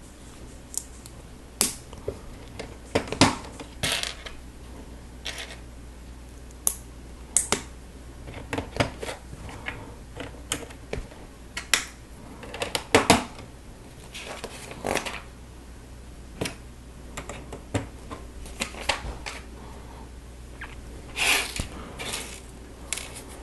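Plastic Lego pieces being handled and snapped together by hand: irregular sharp clicks and small rattles, a few louder snaps among them.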